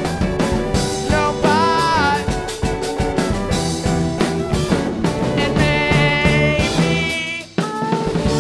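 Live rock band playing the song: drum kit keeping a steady beat under bass, chords and a wavering high melody line. The band cuts out briefly about seven and a half seconds in, then comes back in.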